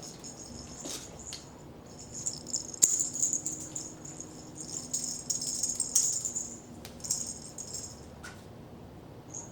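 A small jingling toy being shaken and knocked about, a fluttering high jingle for several seconds with a few sharp knocks.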